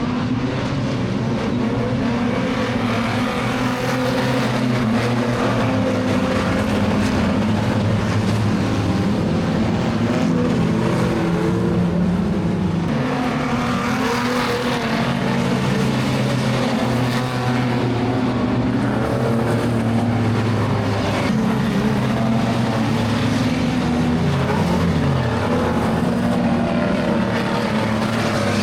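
Several speedway car engines running together at high revs, their pitches rising and falling as the cars lap and overlap.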